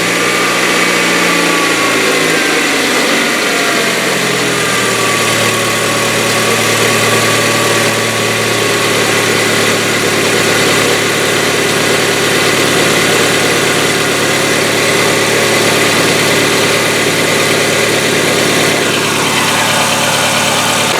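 Hyundai Getz engine idling just after a cold start, its idle settling lower over the first few seconds, with a rapid ticking from the hydraulic valve lifters. Lifters that tick on a cold start, which the owner puts down to sludge-clogged lifters.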